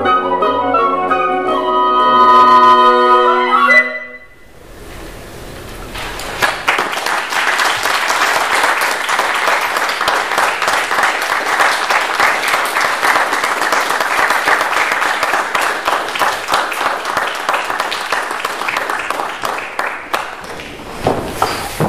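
A woodwind quintet of flute, oboe, clarinet, bassoon and horn swells into a loud final held chord that cuts off about four seconds in. After a brief pause comes audience applause, which thins out near the end.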